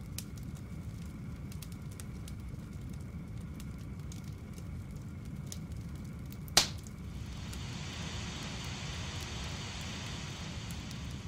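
Plastic windscreen-washer fluid reservoir being handled and turned over, giving scattered light clicks and one sharp click about two-thirds of the way in, over a steady low hum and hiss.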